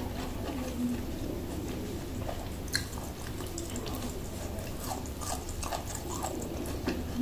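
Chewing close to the microphone: small crisp clicks and crackles of food being bitten and chewed, with one sharper click about three seconds in.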